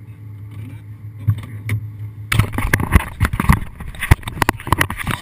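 Aston Martin V8 Vantage's V8 engine idling with a steady low hum. About two seconds in, a run of loud, irregular knocks and rustling close to the microphone begins.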